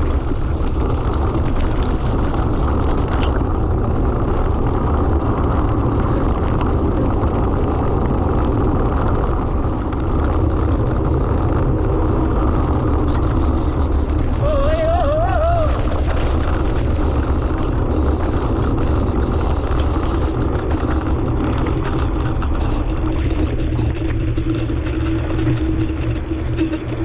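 Steady wind buffeting on a camera riding along with a mountain bike, over the rumble of knobby tyres rolling on a gravel and dirt road. A short warbling whistle comes about halfway through.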